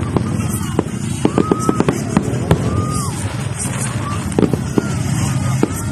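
Aerial fireworks bursting: an irregular string of sharp bangs and crackles over a steady background din.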